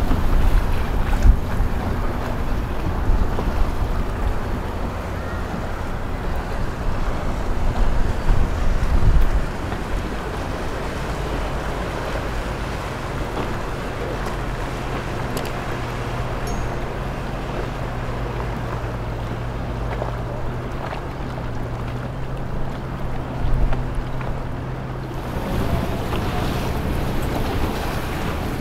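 Motorboat engines running by on open water, with water rushing and wind buffeting the microphone. Heavy wind gusts in the first several seconds, then a steady low engine hum through the middle.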